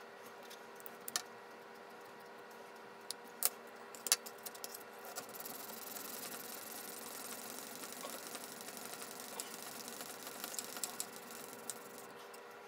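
Old steel chisel being honed in an MPower FastTrack Mk2 sharpener: the edge scrapes back and forth on the abrasive plate in a steady rasping hiss, grinding down nicks in the bevel. A few sharp clicks come in the first four seconds, and the scraping is strongest from about halfway in.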